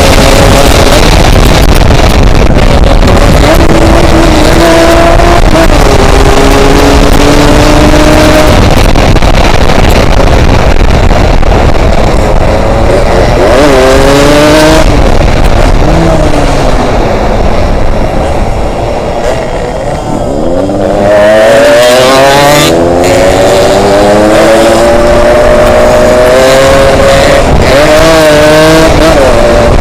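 Yamaha RX-King's two-stroke single-cylinder engine under way on the road, its pitch climbing and stepping through the gears, easing off and dropping about two-thirds of the way in, then revving back up. Heavy wind noise on the microphone runs under it.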